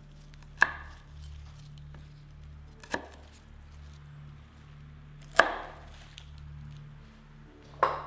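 Fresh celery stalks cracking crisply four times, about two and a half seconds apart, each crack with a short ringing tail.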